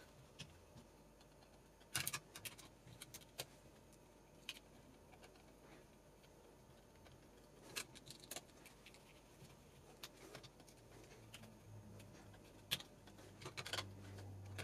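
Faint scattered clicks and light metallic ticks of a Phillips screwdriver turning screws into the printed hot-end mount, in small clusters a couple of seconds in, around eight seconds and near the end. A faint low hum comes in during the last few seconds.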